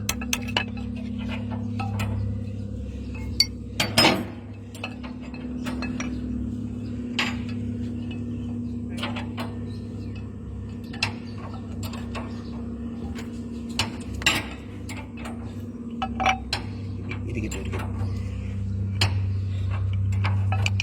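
Irregular light metallic taps and clinks of hand tools working on an electric motor, with one louder knock about four seconds in, over a steady low hum.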